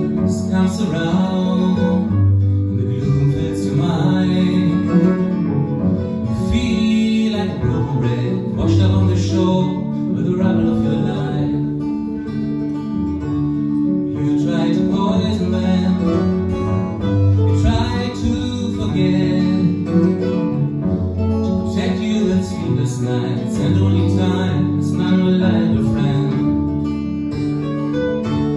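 Live acoustic folk music: strummed and picked acoustic guitar and mandolin over cello, with a singing voice coming in and out in phrases.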